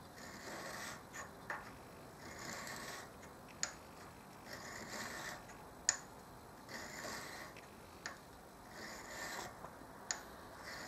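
A sharpening stone rubbed back and forth over the side face of a high-speed-steel lathe tool bit. There are about five slow, faint rubbing strokes, with a light click now and then between them. This is the hand honing that gives the tool a clean cutting edge after grinding.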